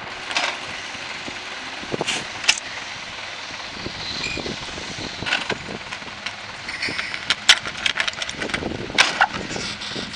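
Tractor with a rear-mounted Pöttinger NovaDisc 305 disc mower, its engine running steadily, with many irregular sharp clicks and knocks.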